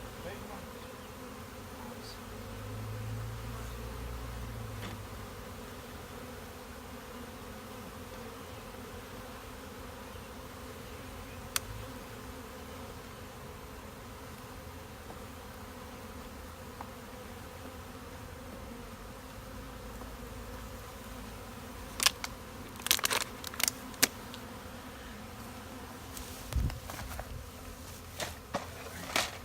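Honeybees buzzing in a steady hum around the opened swarm trap and hive box. A single sharp click comes partway through, and a cluster of sharp knocks comes near the end.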